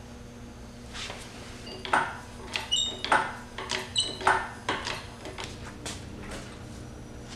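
Engine hoist being worked with a D15B7 engine hanging from it: a run of clunks and clicks, with a couple of short metallic pings, as the handle is pumped and the hanging engine shifts.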